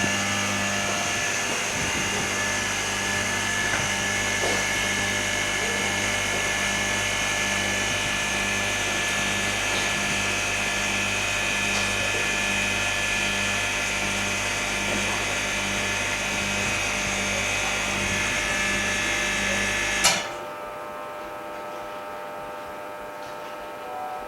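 Steady electric machine hum and whine from the running OCA laminating and bubble-removal machine, stopping suddenly with a click near the end.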